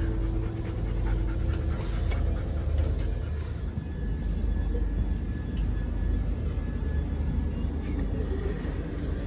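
Steady low rumble of a moving passenger train, heard from inside the sleeper coach, with faint scattered clicks and rattles.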